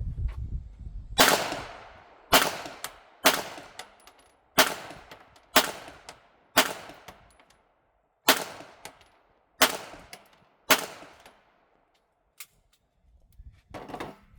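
A firearm fired nine times in a string, roughly a second apart, with a slightly longer gap after the sixth shot; each report is sharp and fades quickly.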